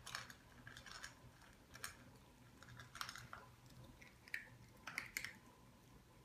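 Small dogs eating: faint, irregular crunching and clicking, a few sharp sounds each second.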